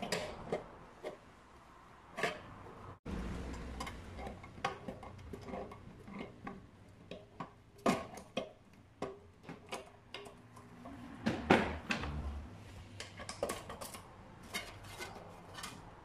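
Light metallic clatter as a sheet-metal enclosure and small metal parts are handled and fitted: irregular clicks, taps and knocks, with one louder knock past the middle.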